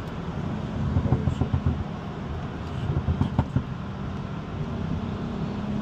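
Tuned BMW M240i's B58 turbocharged straight-six and exhaust running at light load, heard from inside the cabin. Irregular low thumps come about a second in and again past three seconds, and the engine settles into a steady drone near the end.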